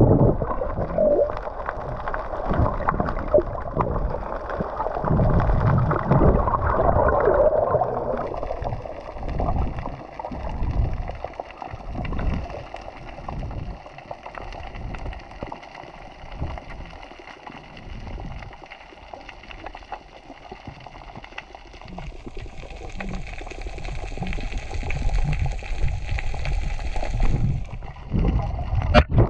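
Muffled underwater sound heard through a waterproof camera housing: irregular low thumps and water movement as the swimmer moves, busiest in the first eight seconds. A faint steady hum of several tones comes in about eight seconds in and grows fuller for a few seconds near the end.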